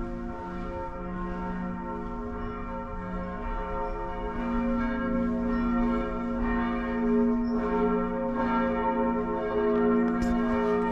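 Several church bells ringing together in a peal, their strikes overlapping in a steady swinging rhythm, louder from about four seconds in.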